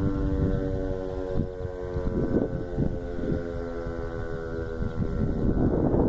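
Outdoor civil defense warning siren sounding a steady, multi-pitched tone during a test, fading out about five seconds in. Wind buffets the microphone throughout and is strongest near the end.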